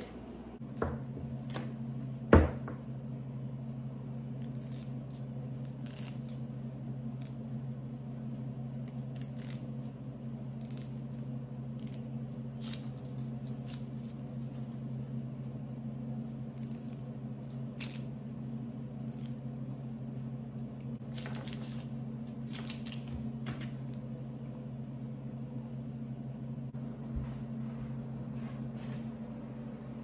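Electric food dehydrator running with a steady hum after a couple of sharp clicks near the start, set on its lowest herb setting to dry moringa leaves. Light, brief crackles come and go over the hum.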